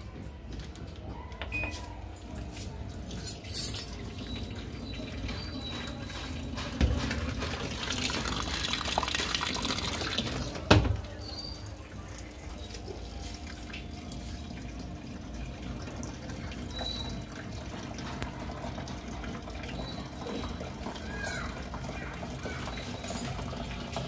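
Onida 6.5 kg fully automatic top-load washing machine taking in water after its start button is pressed: a steady rush of water filling the drum over a low machine hum. A thump sounds about 7 s in and a sharp knock near 11 s.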